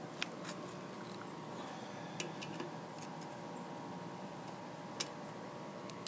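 A few faint, scattered small clicks as the plastic air vane and choke linkage of a Briggs & Stratton engine are handled, over a steady faint hum.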